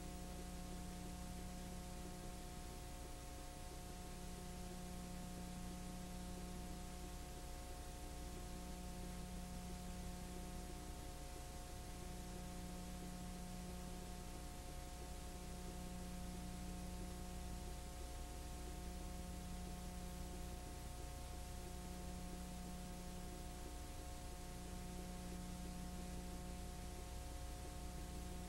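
Steady electrical hum with hiss, the noise floor of a silent film transfer with no soundtrack. One low hum tone drops out briefly every few seconds while the rest stays constant.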